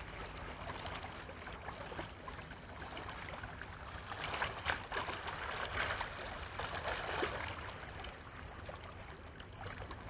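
Small river waves lapping and splashing at the shoreline in uneven surges, over a low steady rumble.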